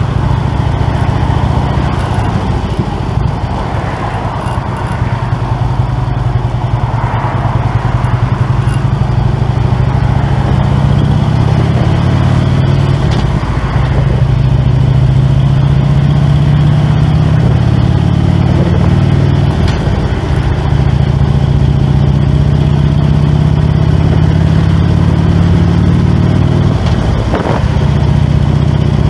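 Harley-Davidson Road King's V-twin engine running steadily while cruising in freeway traffic, heard from the rider's seat.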